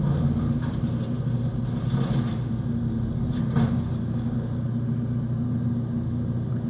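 Stump grinder's engine running steadily as its cutter wheel grinds down a tree stump, with a few faint ticks of chips over the hum.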